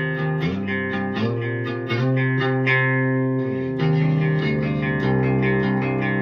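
Electric guitar with humbucker pickups played through the clean channel of a Hiwatt Hi-5 all-tube amp, picking arpeggiated chords with a bright, sparkly tone. The chords change every second or so.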